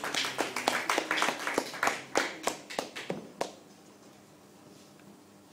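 Sharp percussive hits, about three to four a second and unevenly spaced, each with a short ringing tail; they stop about three and a half seconds in, leaving a faint low hum.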